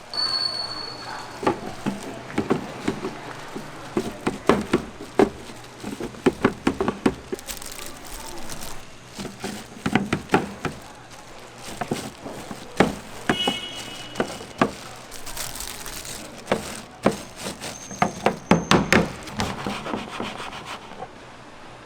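Irregular knocking and clattering of kitchen work, sharp hard taps coming in quick runs with short gaps between them.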